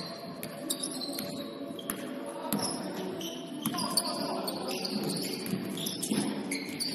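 Basketball sneakers squeaking in short high chirps on a gym floor during play, mixed with scattered thuds of the ball bouncing.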